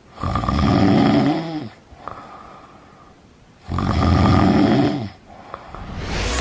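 A sleeping lion snoring: two long, rasping snores about three and a half seconds apart, each lasting about a second and a half.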